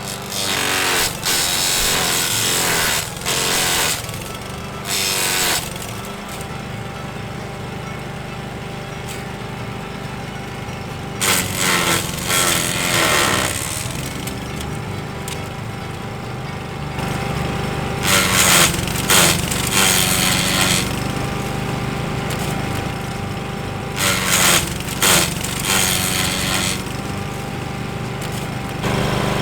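A small engine-powered garden tool running steadily, with several loud, rough bursts of a second or two where it is worked harder, near the start, in the middle and toward the end.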